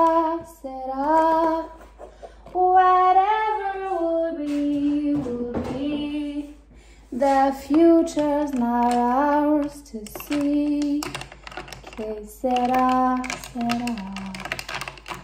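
A woman singing a slow song in phrases of long held notes, with short pauses between the phrases.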